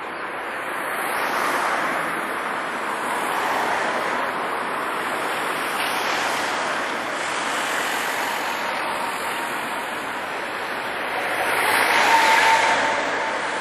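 Street traffic: cars passing one after another, their noise swelling and fading several times, loudest near the end.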